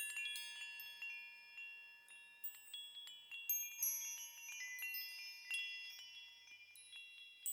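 Wind chimes ringing faintly: many high metallic tones struck at irregular moments, overlapping and ringing on.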